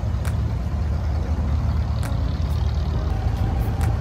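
Diesel engine of an abra, a wooden Dubai Creek water taxi, running steadily with a low rumble while the boat is under way.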